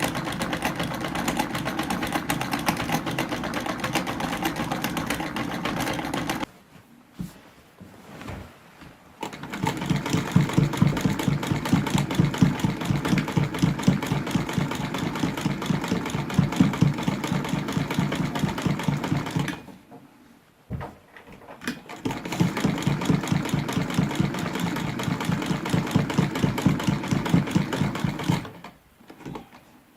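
Sewing machine stitching with a fast, even rhythm, in three runs: it stops about six seconds in, starts again a few seconds later for about ten seconds, pauses briefly, then runs again and stops shortly before the end.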